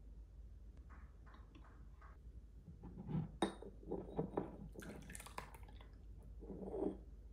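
Kitchen handling sounds: light clinks and knocks of dishes and utensils, with a brief hissing rush about five seconds in.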